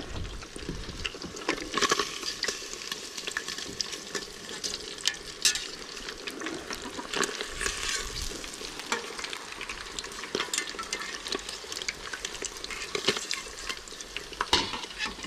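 Hot oil sizzling and crackling as panko-breaded perch fillets deep-fry in a saucepan, with scattered sharp clicks and pops.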